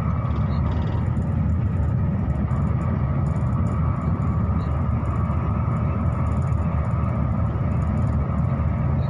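Steady low rumble of a moving passenger train, with a faint steady whine above it.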